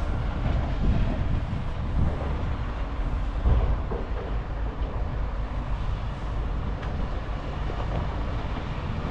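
Heavy diesel construction machinery running steadily, a deep rumble with scattered knocks, one louder knock about three and a half seconds in.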